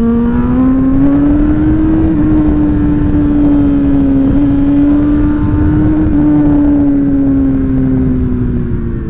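Suzuki GSX-R sportbike's inline-four engine running at steady riding revs, its note rising a little at first and easing down in the last few seconds, over a constant rush of wind and road noise.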